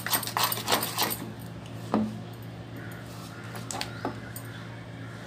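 Metal spoon stirring a thick flour batter in a bowl, clicking against the bowl rapidly for about the first second, then only a few single taps.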